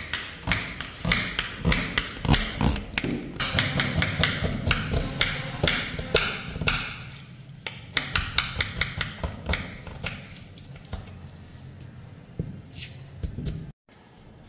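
Knife chopping goat offal, a quick run of repeated knocks that turns slower and fainter about halfway through.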